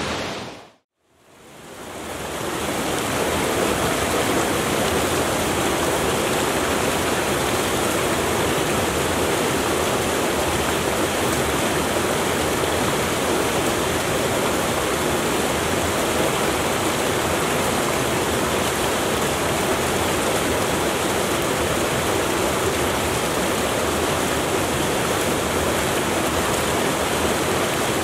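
Brook cascading over rocks: a steady rush of running water that fades in after a moment of silence near the start.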